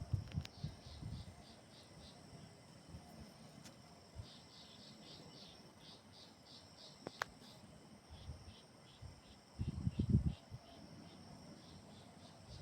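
Insects chirping in trains of about four pulses a second over a steady high-pitched insect drone. Low rumbles, like wind on the microphone, come briefly near the start and again about ten seconds in.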